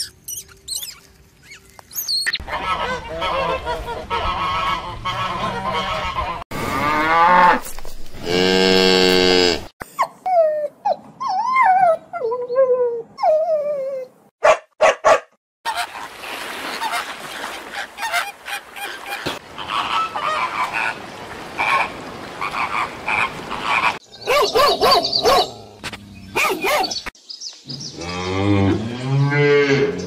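A string of different animal calls cut one after another: a series of strong calls and whistling chirps, then a flamingo flock honking and chattering, and near the end a cow's long, deep moo.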